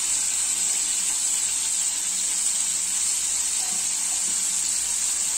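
Marinated chicken tikka pieces shallow-frying in hot oil in a flat pan: a steady, even sizzle.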